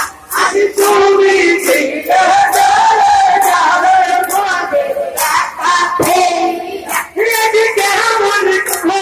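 A crowd of men chanting loudly together in long drawn-out notes, with sharp impacts cutting in at irregular moments.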